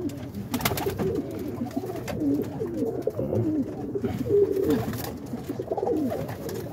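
Several Birmingham roller pigeons cooing in a loft, low overlapping coos, with a brief rustle about half a second in.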